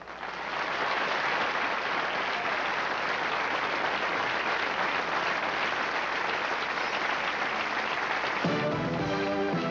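Audience applauding, a dense steady clapping. Near the end, music for the next number starts up.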